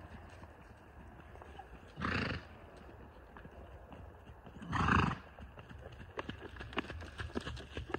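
Horse loping on soft dirt: two short, loud vocal sounds from the horse about two and five seconds in, then a quick run of hoofbeats growing louder as it comes close.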